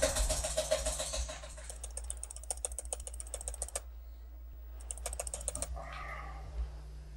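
Fast typing on a laptop keyboard: a rapid run of key clicks that gets lighter after about a second and a half, stops for about a second some four seconds in, then comes back in a short burst.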